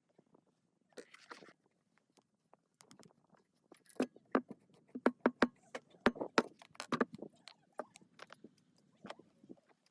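Irregular clicks and light knocks of parts being handled and set down during hands-on workshop work, coming in a quick cluster in the middle after a quieter start.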